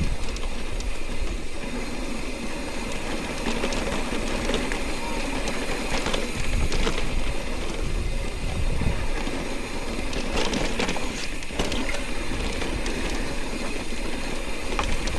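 Steady wind buffeting the microphone with a low rumble, and scattered clicks and rattles from riding over a rough trail.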